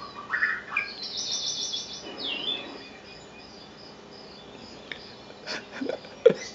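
Recorded birdsong playing from a television: chirps, then a fast high trill about a second in, followed by a whistled note that dips and rises, with a few short calls near the end.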